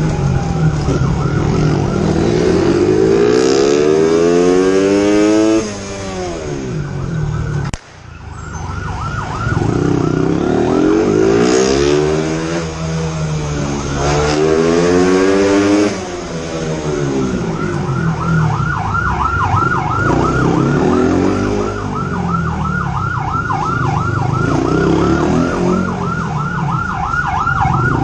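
A police motorcycle siren pulsing in a fast, steady warble over a motorcycle engine that revs up and drops again and again as the bike accelerates and slows through the alley's turns. The engine falls away briefly about a quarter of the way in.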